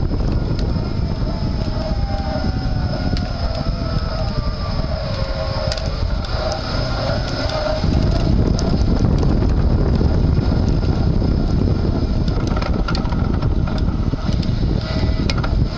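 Front hub motor of an electric-assist bicycle whining under way, its tones falling in pitch for a few seconds as it slows, over steady road and wind noise. The low rumble grows heavier about halfway through.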